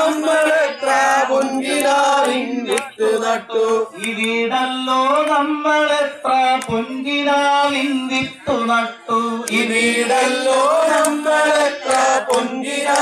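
A man singing a Malayalam song into a microphone, in long held notes broken by short pauses for breath.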